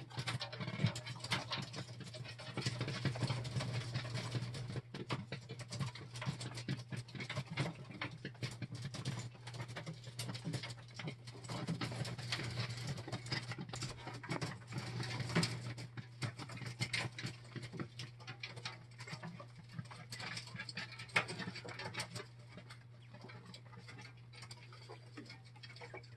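Jumbo Wild coturnix quail moving about in a wire-floored cage: a dense, irregular patter of light taps and scratches on the mesh, thinning out over the last few seconds.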